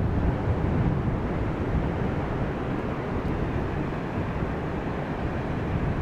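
Ocean surf breaking on a sandy beach at low tide: a steady wash of several lines of waves breaking and running in as whitewater.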